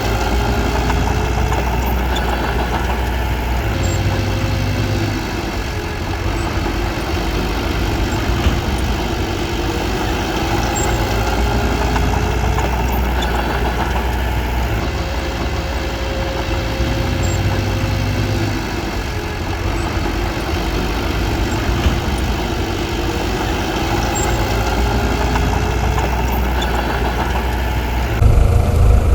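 Bulldozer's diesel engine running steadily, its pitch wavering slightly as the load changes. About a second before the end the sound turns louder and deeper.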